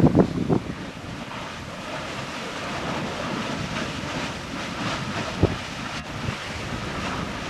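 Erta Ale's lava lake churning and spattering: a steady rushing noise with crackling flecks, and one sharp thump about five and a half seconds in. Wind buffets the microphone in gusty low thumps during the first half-second.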